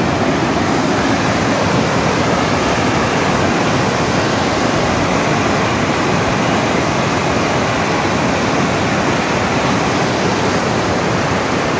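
Mountain stream cascading over rocks: a loud, steady rush of water.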